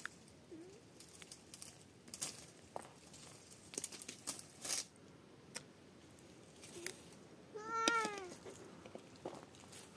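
A cat meows: a faint short call near the start and one clear drawn-out meow, rising then falling, about eight seconds in, over scattered light clicks and taps.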